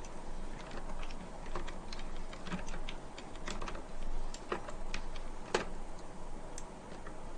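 Screwdriver tightening a thumb screw on a CPU cooler's mounting bracket: irregular light clicks and ticks as the tip turns in the screw and the tool shifts.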